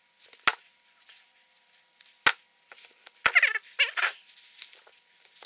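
Hand tools and a small shrink-wrapped rechargeable battery pack handled on a workbench: three sharp clicks of tools being picked up and set down, and two short squeaky scrapes of plastic just after the middle.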